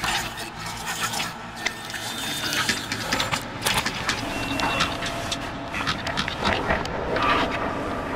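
Instruo Arbhar granular processor playing a glitchy, shifting granular texture of many short clicks and grains. Its settings are being swept by free-running LFOs, and the pattern changes as pin cables are re-plugged in the Lion matrix.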